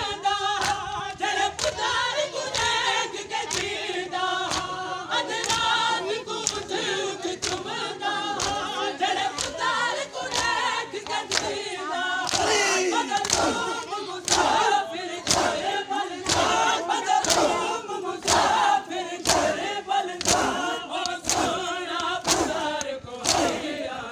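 Crowd of men chanting a Muharram mourning lament (noha) together, with rhythmic chest-beating (matam): loud, even open-hand slaps on bare chests, a little faster than one a second.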